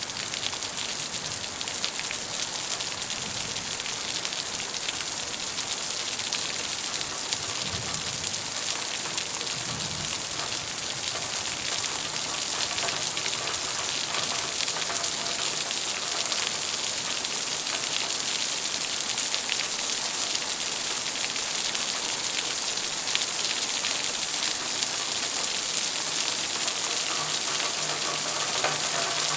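Steady rain falling, a dense hiss of many small drop impacts, strongest in the high range and growing slightly louder over the stretch.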